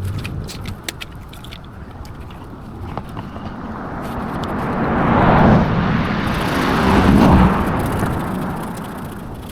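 A car driving past: its road noise swells from about three seconds in, is loudest around five to seven seconds, and fades away near the end.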